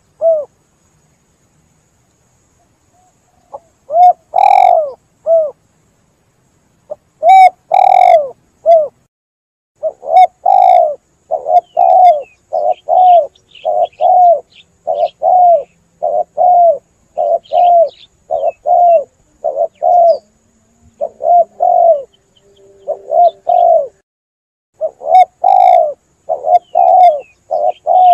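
Spotted dove (tekukur) cooing in repeated low phrases. After a silent start come a few spaced coo phrases, then a dense, almost continuous run of coos from about a third of the way in. Faint higher chirps of small birds sound behind the coos in the middle.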